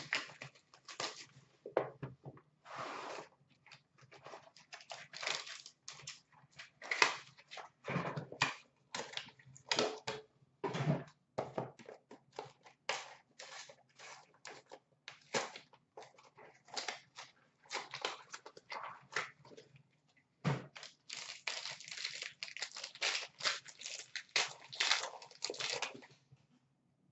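A Panini Prime hockey card box and its pack being unwrapped by hand: irregular tearing and crinkling of wrapping, with many short clicks and taps of packaging and card stock.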